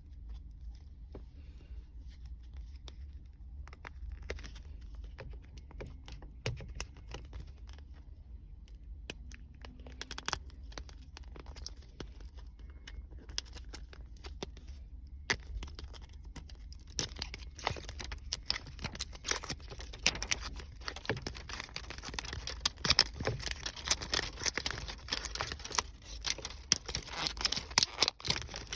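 Crackle foam being squeezed and pulled. Scattered small clicks and rustles at first give way, past the halfway point, to dense, continuous snapping and crackling that grows louder.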